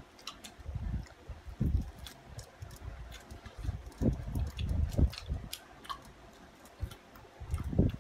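People eating noisily: chewing and mouth noises with scattered small clicks and irregular low thuds.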